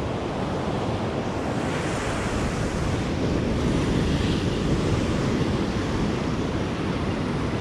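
Ocean surf breaking and washing up the sand, a steady rushing noise, with wind on the microphone.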